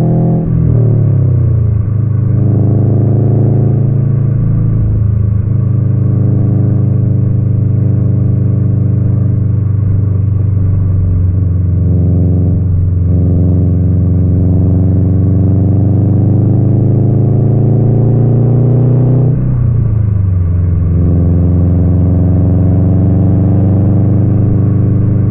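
2020 Subaru WRX STI's turbocharged flat-four engine and exhaust with its rumble, driven through the gears: the revs drop sharply just after the start and again about 19 seconds in, as at upshifts, and climb slowly in between, with brief dips around 10 and 13 seconds.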